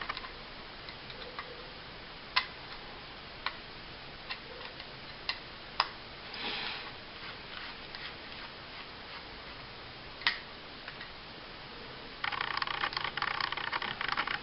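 Small metal parts of a compact 1911-style pistol being handled: scattered sharp clicks, a short rattle about six seconds in, and a dense scraping rattle over the last two seconds, as the second grip panel's screws are worked loose.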